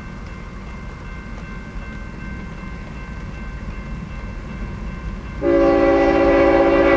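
Grade-crossing warning bell ringing over a low rumble; about five and a half seconds in, the lead GE ET44AC locomotive's air horn sounds a loud, steady chord of several notes as the train approaches the crossing.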